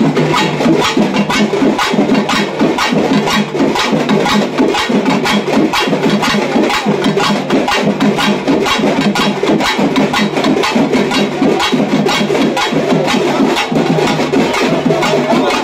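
Tamil temple festival drums, pambai-style, beaten in a fast, even, continuous rhythm.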